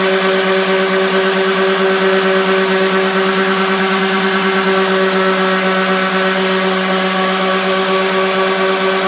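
Electric orbital sander running steadily with 80-grit paper against a coffee table top, a constant motor hum and whine over the hiss of the paper, stripping off a thick old finish.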